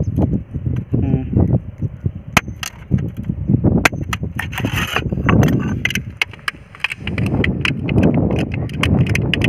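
Irregular sharp taps and knocks of a flat metal blade being worked through a thin tin sheet against a rock, cutting it into shape.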